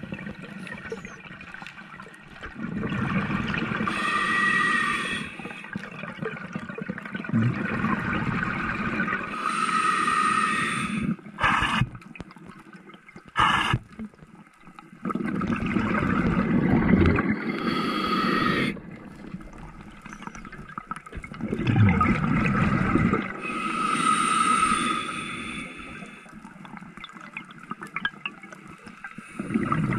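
Scuba diver breathing through a regulator underwater, about five breaths roughly six seconds apart: each inhale a hiss with a faint whistling tone, each exhale a rush of bubbles.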